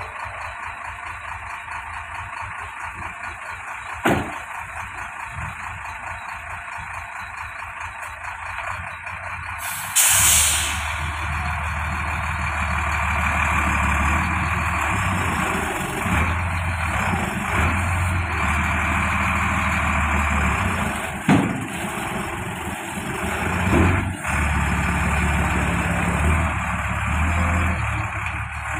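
Heavy diesel semi-tractor truck: the cab door shuts with a sharp click about four seconds in, and a loud burst of air hiss follows near ten seconds. The engine then runs louder under load as the rig pulls off and manoeuvres, with a couple of short knocks later on.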